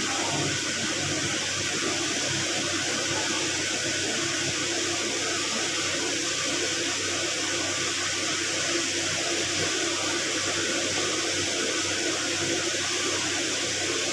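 Steady rushing noise at an even level, with a faint low hum under it.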